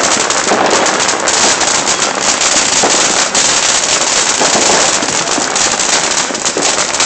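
Ground fountain firework spraying sparks: a loud, steady hiss shot through with rapid crackling pops.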